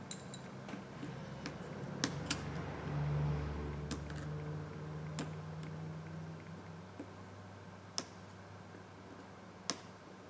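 Sparse small clicks and taps of a screwdriver and fingertips on the internal screws and metal brackets of an opened iPhone 7 Plus, about half a dozen spread out. A low steady hum swells in the background for a few seconds in the middle.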